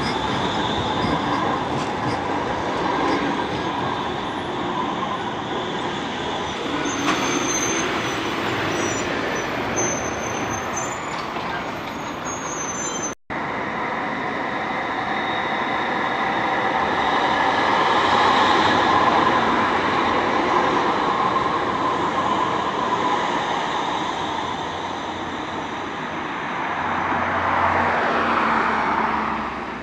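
Bombardier M5000 light-rail trams running through a tram stop: a steady rolling and running noise that swells as a tram draws close. There is a brief cut-out about halfway, after which a second tram approaches and passes.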